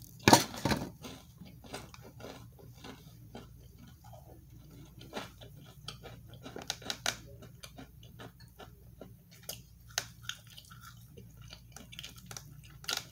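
Close-up chewing of a mouthful of Texas toast: irregular wet smacks and clicks of the mouth, with one louder burst about a third of a second in.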